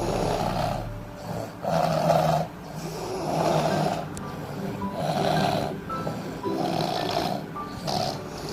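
Two sleeping people snoring together, a rasping snore coming about every one and a half to two seconds.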